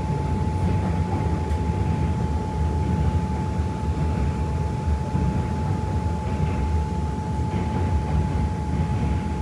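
Aizu Railway diesel railcar running: a steady low rumble with a thin, steady whine above it.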